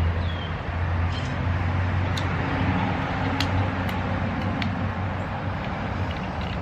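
Steady low background rumble with a few faint, sharp clicks.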